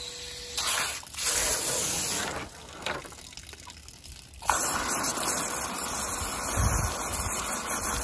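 Pistol-grip spray nozzle on a garden hose blasting water into the body cavity of a freshly gutted chicken: a few short sprays in the first couple of seconds, then a steady spray from about halfway through, rinsing the cavity until the water runs clear.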